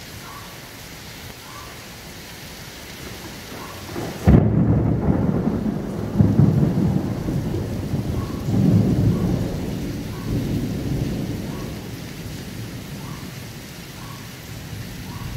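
Steady rain falling, then about four seconds in a sudden crack of thunder. It rolls on as a loud low rumble that swells several times and slowly dies away.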